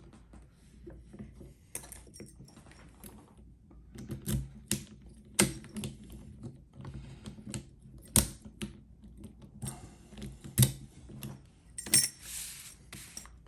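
Irregular sharp clicks and clacks of small metal objects being handled, such as a padlock, its keys and lock picks, with a short metallic rattle near the end.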